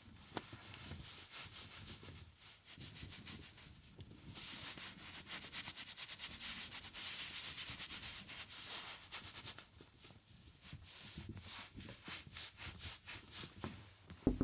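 Cloth rustling and rubbing as clothes are handled, in uneven bursts with small clicks and scrapes, thickest in the middle.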